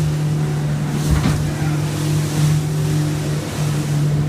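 Boat engine running at a steady drone as the hull rides through rough waves, with washes of water and spray swelling and fading every second or two and a thump a little over a second in.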